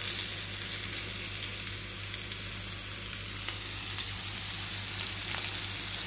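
Flour-coated whole fish sizzling and crackling steadily in hot oil in a frying pan as more fish are laid in.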